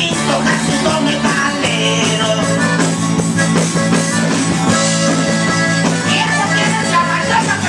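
Loud dance music played through a DJ sound system, steady and unbroken, with sustained low notes under a melody.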